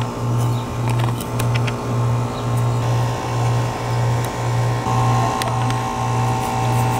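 A machine runs with a low hum that throbs evenly about twice a second. Over it come faint clicks and scrapes of a fillet knife working along a bluegill's rib cage.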